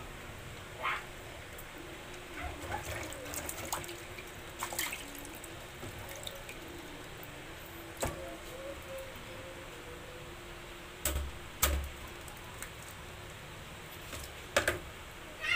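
Water splashing and dripping as raw crabs are washed by hand in a basin of water and lifted out, with scattered small splashes and two sharp knocks about a second apart late on.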